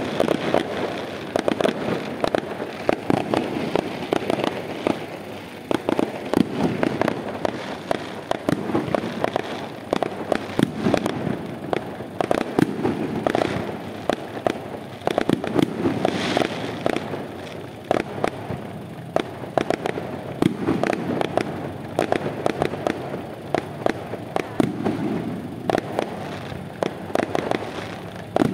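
Fireworks going off in a rapid, unbroken series of bangs and crackles.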